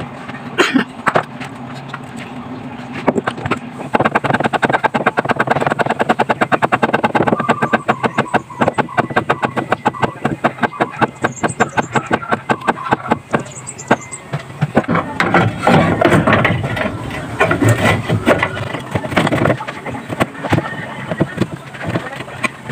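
Hand ratchet clicking rapidly and evenly for several seconds as a bolt is turned, followed by a busier clatter of plastic and metal parts being handled in the engine bay.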